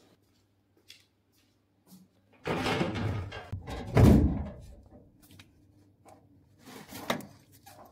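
Handling noise as the camera and its microphone are picked up and moved: rustling from about two and a half seconds in, a heavy thump about four seconds in, and a few faint clicks near the end.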